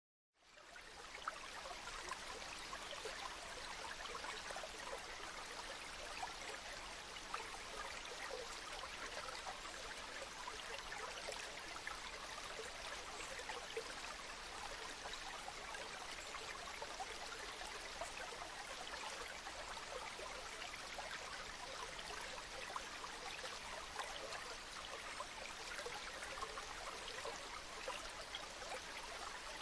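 Steady rain falling, a dense patter of many small drops, fading in at the start.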